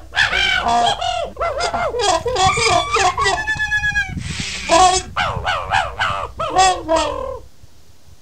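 A flock of birds, fowl-type, calling loudly, many overlapping calls that rise and fall in pitch, one held steady near the middle, all stopping abruptly about seven and a half seconds in.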